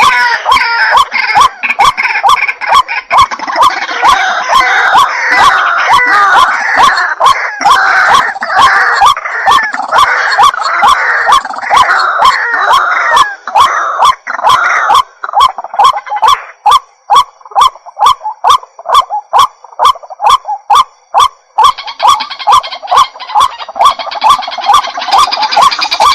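Waterhen (jal murgi) calling: a long, fast run of loud, harsh repeated notes, about two to three a second. For the first half it is thick with overlapping calls, then after about fifteen seconds it thins to single, clearly separated notes.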